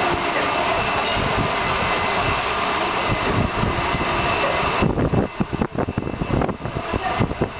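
Steady machinery noise with a few faint high whining tones, cutting back sharply about five seconds in to uneven low thumps and rumbles.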